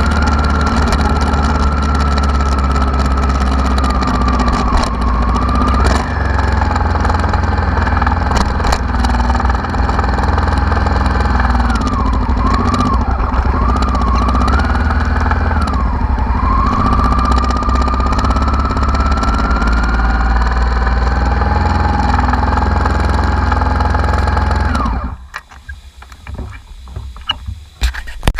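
Honda Africa Twin RD04's V-twin engine running steadily, its pitch dipping and rising a few times in the middle, then switched off and stopping suddenly about 25 seconds in, followed by a few small clicks.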